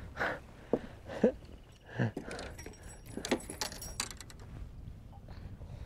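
Light metallic clinking and rattling of fishing tackle being handled on a boat deck, with a quick run of sharp clicks about three to four seconds in.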